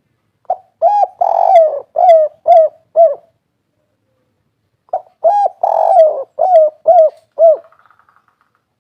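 Spotted dove (derkuku, tekukur) cooing its 'kuk 3' song: two phrases, each a short opening note, a longer rolling coo and then three short 'kuk' notes. The phrases are about two seconds apart.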